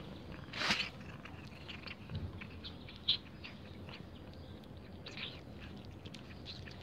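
Cat chewing and licking a piece of cheese on the floor: a run of small wet clicks and smacks, with a short louder noisy burst a little under a second in and a sharp click about three seconds in.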